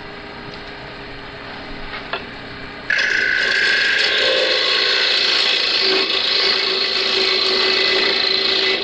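Wood lathe spinning a black walnut blank; about three seconds in, a carbide-tipped parting tool plunges into the wood, and a loud, steady cutting noise follows as it parts the lid off.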